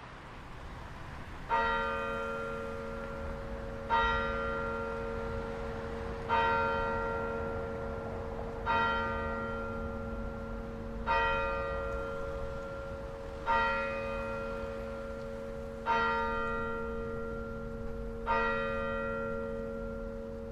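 A single bell tolling slowly: eight strokes about two and a half seconds apart, the first about a second and a half in. Each stroke rings on and fades into the next over a steady low hum.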